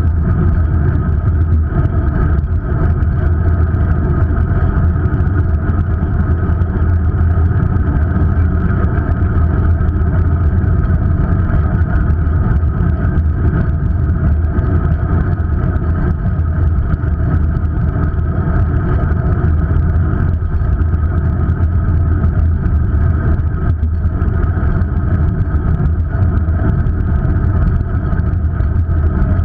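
Steady low rumble of riding noise, wind and road vibration, picked up by an action camera mounted low on a bicycle moving along a city street.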